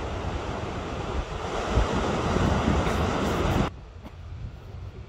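Wind buffeting the microphone over ocean surf, a rushing noise that grows louder, then drops off suddenly a little over three and a half seconds in to a quieter wind hiss.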